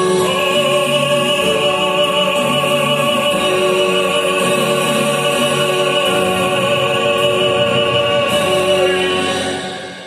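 A man singing, holding one long final note in an operatic style over an orchestral backing track. The note and the music fade out together near the end.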